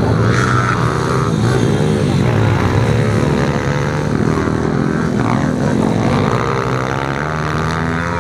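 Several pit bikes racing on a dirt track, their small single-cylinder engines revving up and down and overlapping.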